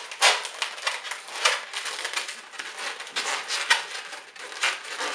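Latex modelling balloons rubbing against each other and against bare hands as a balloon rose is twisted and the balloon's end is pulled through: a quick, irregular run of short scratchy rubs.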